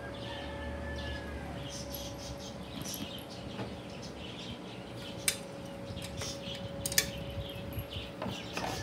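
Manual meat slicer being handled and tilted on a table: light clicks and knocks of its metal and acrylic base, with two sharper knocks about five and seven seconds in, over a steady faint hum.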